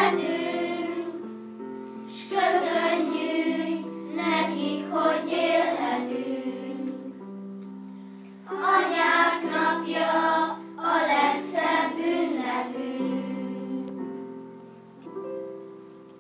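A class of children singing a song together in phrases over held accompaniment notes. Near the end the singing stops and the accompaniment plays on briefly.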